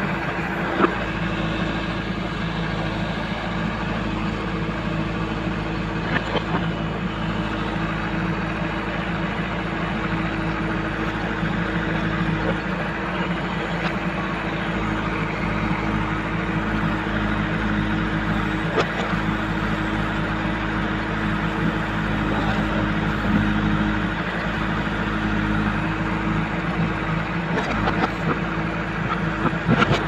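JCB 3DX backhoe loader's diesel engine running steadily under load as the backhoe arm digs, with a few sharp knocks, one about a second in and several near the end.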